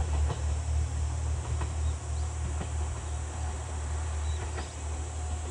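Insects buzzing steadily as a high, even drone, over a constant low rumble.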